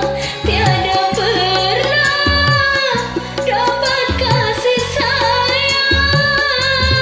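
A woman singing long held notes with a wavering pitch over a karaoke backing track of bass and drums.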